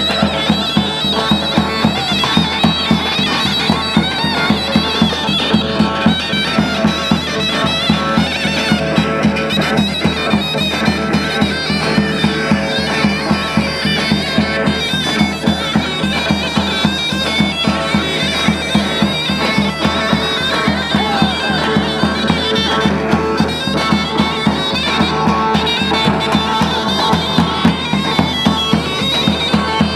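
Turkish folk dance music: a shrill zurna (double-reed shawm) playing a continuous melody over a steady davul drum beat.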